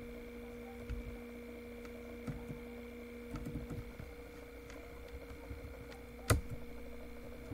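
Sparse computer keyboard keystrokes, with one sharper, louder click a little over six seconds in, over a steady low electrical hum.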